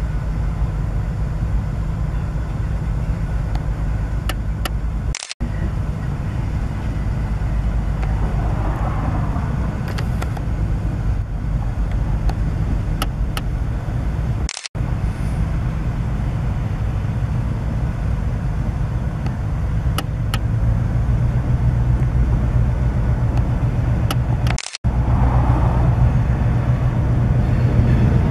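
Diesel switcher locomotive's engine running steadily as it creeps forward pulling a string of gondolas. It grows louder about two-thirds of the way in. The audio cuts out for a split second three times.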